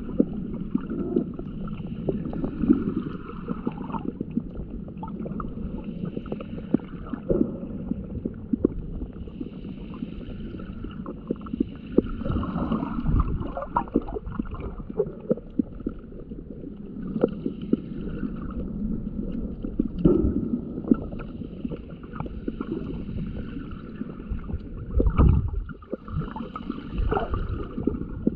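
Muffled water sound of a camera held underwater in shallow water: low sloshing and gurgling, with scattered sharp clicks and crackles and a few louder swells.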